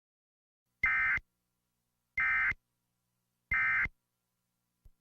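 Emergency Alert System end-of-message signal: three short, identical bursts of buzzy digital data tones, about 1.3 s apart, marking the end of the alert.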